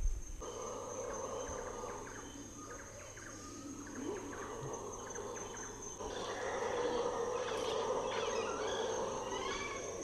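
Howler monkeys roaring, the chorus growing louder about six seconds in, over a steady high-pitched insect drone. A few bird chirps near the end.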